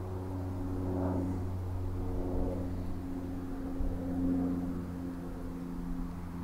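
Steady low hum of a motor running.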